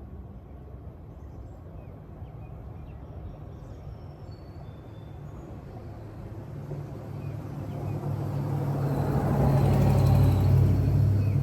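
A motor vehicle approaching and passing, its engine hum and tyre rush growing steadily louder to a peak near the end, then starting to fade. Birds chirp faintly in the background.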